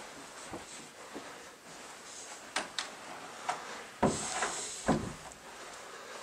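An interior door being shut by its knob: two thuds about a second apart near the end, after a few light clicks.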